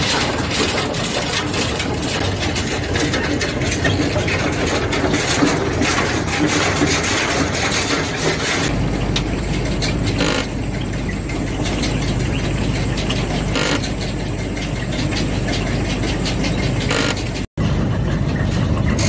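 Heavy site machinery running: a diesel engine with a mobile belt conveyor, and soil clattering as it is dumped and falls into hoppers. The sound changes abruptly about nine seconds in to a steadier low engine hum, and drops out for a moment near the end.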